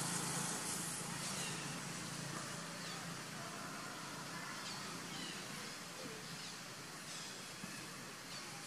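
Outdoor natural ambience: a steady hiss, brighter for about the first second, with faint short high chirps every second or two.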